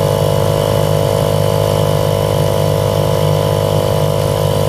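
1938 Evinrude Lightwin 4.7 hp two-stroke twin outboard motor running steadily at an even speed.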